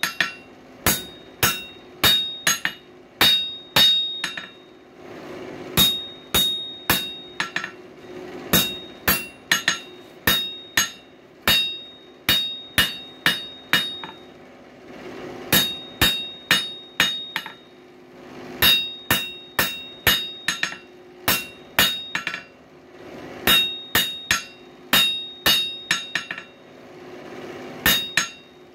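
Hammer blows ringing on an anvil as the hot coil-spring steel bar for a screwdriver is straightened. The strikes come in quick runs of several, about two to three a second, with brief pauses between runs. A steady low hum runs underneath.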